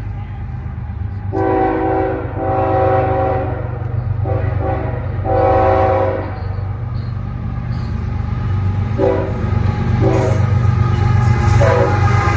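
CSX diesel locomotive's multi-chime air horn sounding a string of blasts: four long ones, then after a pause three shorter, fainter toots. A steady low rumble from the train runs underneath.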